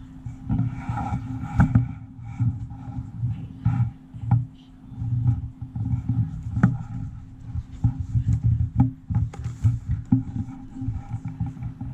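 Handling noise from unboxing a USB hub: irregular bumps, clicks and knocks of the box and packaging being handled, over a steady low hum.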